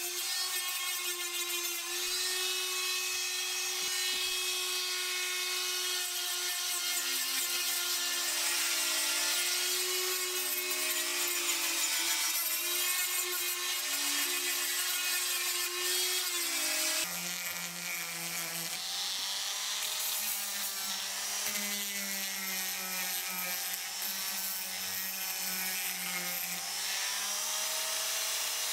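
High-speed rotary tool (Dremel) with a coarse sanding drum running as it sands rust off a steel masonry hammer head: a steady motor whine whose pitch wavers slightly. About 17 seconds in the tone shifts abruptly to a lower, steadier hum.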